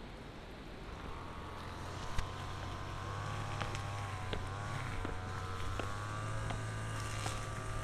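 A motor vehicle's engine running, a steady low hum with a higher wavering whine that comes in about a second in and slowly grows louder, with light footsteps clicking throughout.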